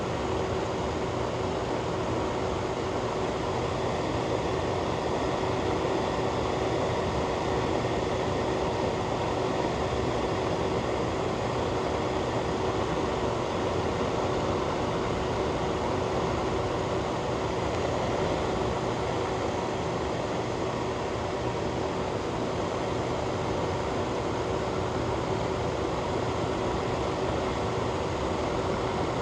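Ventilation fan running steadily: an even rushing noise with a constant hum.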